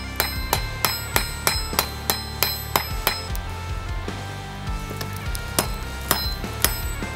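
Hand hammer striking red-hot rebar on a block of scrap steel used as an anvil, about three ringing blows a second. The blows stop for about two seconds midway, then resume. Music plays underneath.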